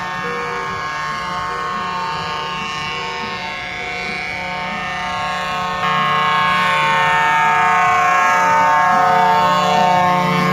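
Several vehicle horns held at once in long blasts as a convoy drives slowly past, over the steady low running of a lorry's engine. Louder from about six seconds in, as a lorry draws level.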